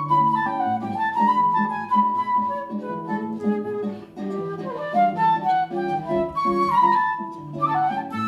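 Live bossa nova instrumental: a woodwind melody with long held and sliding notes over strummed guitar chords.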